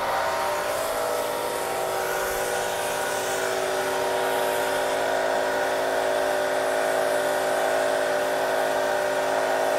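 Electric pressure washer running steadily, a constant motor-and-pump hum with the hiss of the spray, as the lance washes the foam-covered engine bay of a car.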